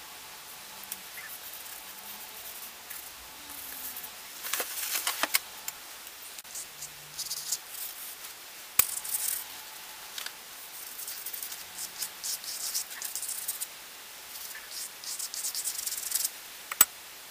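Paintbrush scrubbing and dabbing paint onto cardboard, heard as short stretches of scratchy rubbing, with two sharp taps, one in the middle and one near the end.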